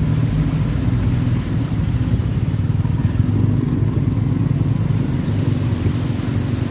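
A motor vehicle's engine running steadily at low revs, with a rough, rapid pulsing, over a constant hiss.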